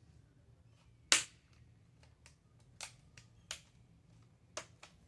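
Plastic screen bezel of a Dell laptop being pressed onto the lid, its clips snapping into place with sharp clicks: one loud click about a second in, then three smaller ones and a few faint ticks.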